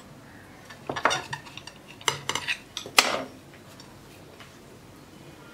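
A table knife cutting through a rolled patishapta pitha on a ceramic plate, the blade knocking and scraping against the plate: a few short clinks about a second in, a quick cluster about two seconds in, and one sharper clink at about three seconds.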